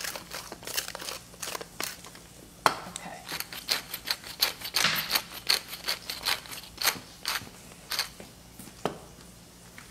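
Hand-twisted salt and pepper grinders crunching over a salad bowl: quick, irregular runs of dry clicks as the mills are turned to season the food.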